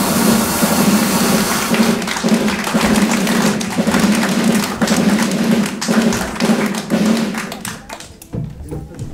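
Drum roll marking the end of a town crier's drummed-out proclamation: a continuous rattling roll with a steady drum tone underneath. It runs for about seven and a half seconds, then thins into a few separate beats near the end.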